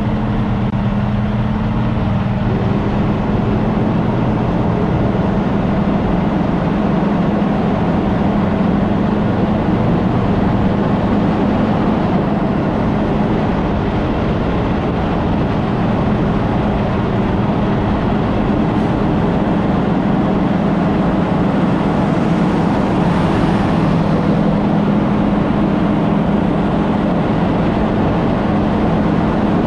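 Semi-truck under way: a steady diesel engine drone with road and tyre noise.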